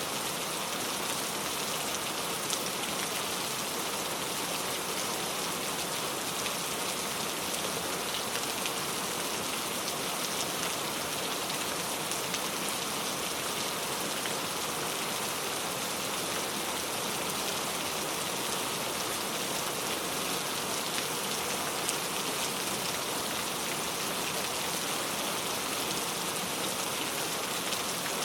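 Heavy rain falling steadily on a leaf-covered road, an even hiss of countless drops tapping.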